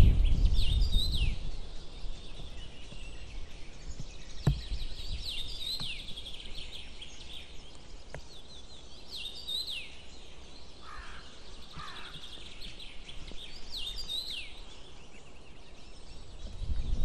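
A songbird singing a short phrase over and over, about every four to five seconds, with two lower call notes around the middle. A low rumble, likely wind on the microphone, fades out over the first two seconds.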